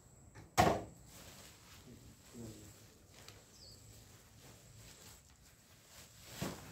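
A large plastic sack rustling and flapping as it is lifted and handled, with one sharp swish about half a second in and softer rustles later.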